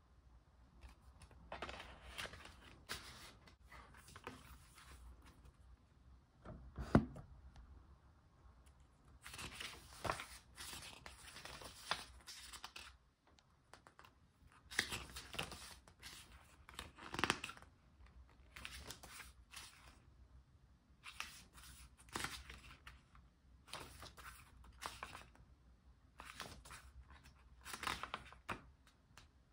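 Album packaging and paper inserts being handled: repeated bouts of rustling, crinkling and tearing, with a sharp knock about seven seconds in.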